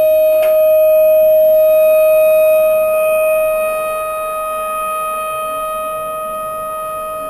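Recorded civil-defense tornado siren played from an iPod through a small radio speaker mounted in a homemade tin-can horn. It holds one steady tone, which swells louder and eases off after about three seconds, with a brief click about half a second in.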